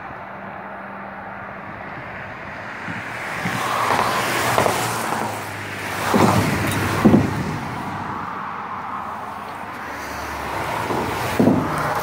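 Traffic passing over a highway bridge expansion joint: a steady tyre rush that swells as vehicles go by, broken by sharp clunks as their wheels strike the joint, several times, the loudest about seven seconds in.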